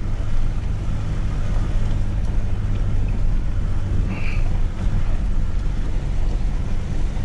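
Pickup truck driving, its engine and road noise a steady low drone heard from inside the closed cab.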